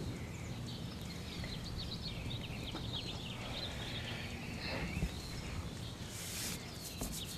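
Small birds chirping and twittering over a steady low background rumble, with a brief hiss about six seconds in.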